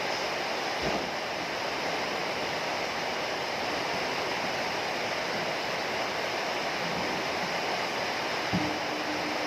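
Heavy rain falling steadily, an even dense hiss, with two brief low thumps, one about a second in and one near the end.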